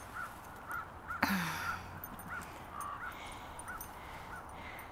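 A single loud, harsh animal call about a second in, over faint short high chirps repeated about twice a second.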